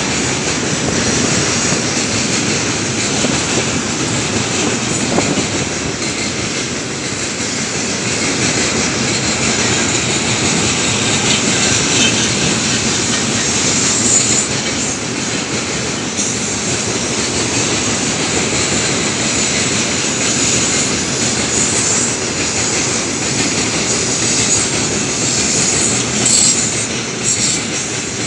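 Heavy tank-car freight train rolling past: a steady loud rumble of steel wheels on rails, with wheel clacks and a few brief high squeals.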